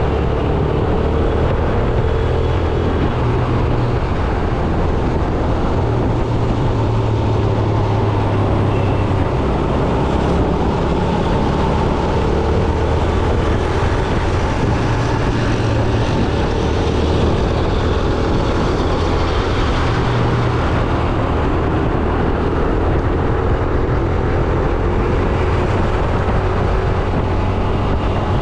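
Yamaha YBR 125G motorcycle's single-cylinder four-stroke engine running under way, its pitch stepping up and down as the rider changes speed, over steady road and wind noise.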